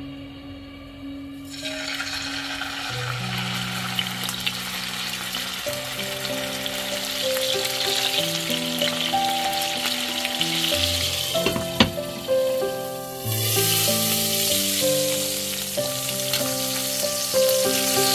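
Boneless chicken thighs sizzling in hot vegetable oil in a frying pan. The sizzle starts about a second and a half in as the meat goes into the oil, and gets louder near the end. A few sharp clicks come near the middle, where a metal spatula presses the meat in the pan. Background music plays throughout.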